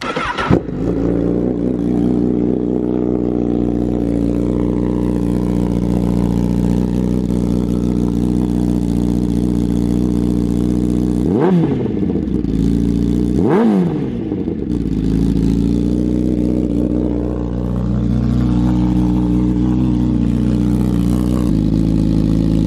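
2017 Honda CBR1000RR inline-four, fitted with an Akrapovic GP titanium slip-on exhaust, firing up about half a second in and then idling steadily. Around the middle come two quick throttle blips, each rising and falling in pitch.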